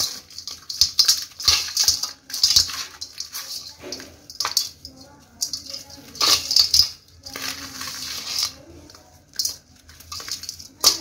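Lumps of dry dirt crumbling in the hands, the crumbs and grit falling and rattling onto a perforated aluminium bowl in uneven bursts of crunching.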